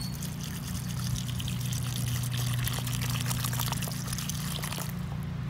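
Water poured in a thin stream from a plastic bottle onto loose dirt in a cardboard box, splashing and trickling until it stops about five seconds in. A steady low hum runs underneath.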